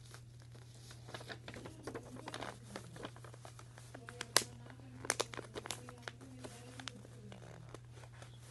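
A sheet of paper being folded and creased by hand into a fortune teller: crinkling and rustling with many short, sharp clicks, the loudest a crisp snap about four seconds in.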